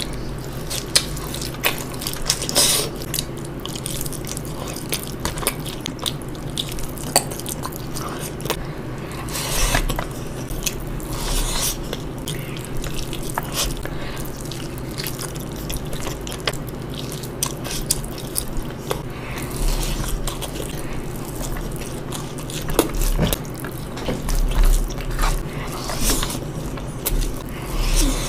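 Close-miked eating: bites and wet chewing, with many short clicks and smacks scattered throughout over a steady low hum.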